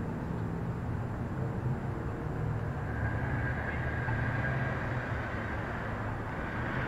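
Steady low rumble of idling car engines and street traffic. A thin, steady high whine joins about three seconds in.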